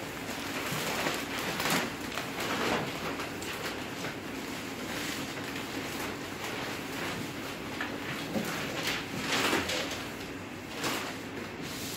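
Thin plastic bag rustling and crinkling as it is handled and cut, with louder bursts of crackle every few seconds.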